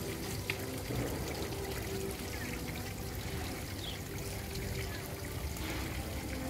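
Light splashing and trickling of water as a house sparrow bathes in a shallow pond edge, with quiet background music holding long notes.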